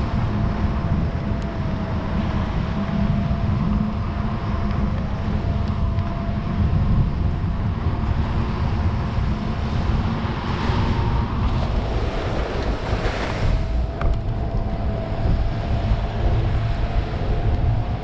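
Wind buffeting the microphone of a fat-tire electric bike riding along a sandy beach, with a steady whine from the bike's electric motor. Surf washes on the shore, swelling louder twice about two-thirds of the way through.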